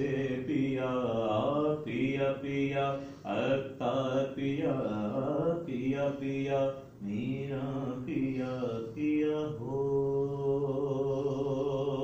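A man's voice chanting a devotional recitation in melodic phrases, the notes drawn out and wavering, ending on one long held note.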